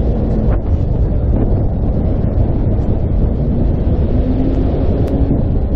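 Wind buffeting the microphone: a steady low rumble that covers the street sounds.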